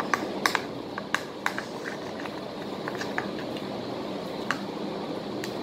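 Utensil clicking and scraping against a plastic bowl while stirring freshly activated, still sticky slime: irregular small taps, thickest in the first two seconds and sparser after, over a steady background hiss.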